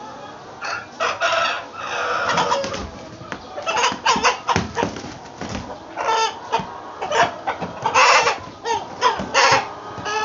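White chickens squawking in short, loud, repeated bursts as a rooster is grabbed and held by hand: the calls of a disturbed, agitated bird.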